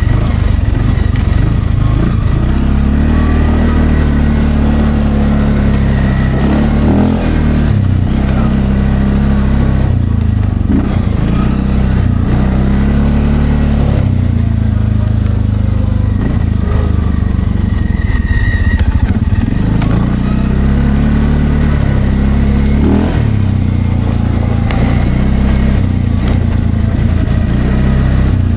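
Linhai Landforce 550L ATV engine running under load, its pitch rising and falling again and again as the throttle opens and closes, with a few short knocks from the ride.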